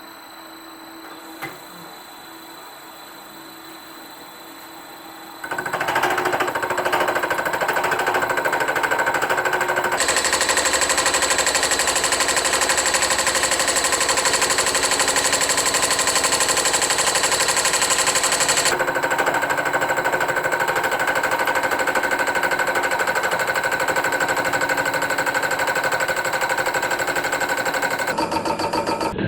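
Milling machine spindle running, then a carbide-insert fly cutter starts an interrupted cut across a steel plate about five seconds in: a loud, fast, hammering clatter as the single cutter strikes the metal on every turn, louder for a stretch in the middle. Music comes in just before the end.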